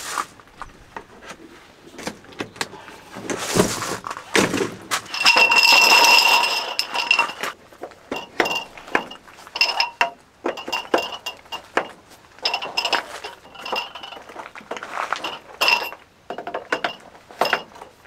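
Camping gear being handled while pitching camp: a long series of short metallic clinks and knocks, with a louder stretch of rustling and ringing about five seconds in.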